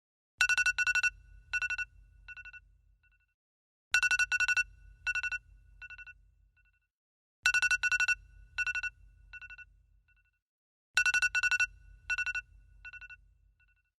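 iPhone alarm tone ringing: the same phrase of quick electronic beeps at one steady pitch repeats about every three and a half seconds, four times, each time a loud cluster of beeps trailing off into fainter ones.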